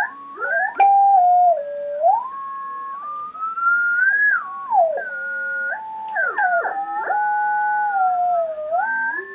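Chaotic Lorenz-attractor signals from an Elektor chaos generator analog computer played as sound: one or two pure whistling tones that slide up and down, hold a pitch for a moment, then glide on, theremin-like. There are a few sharp clicks, near the first second and around six seconds in.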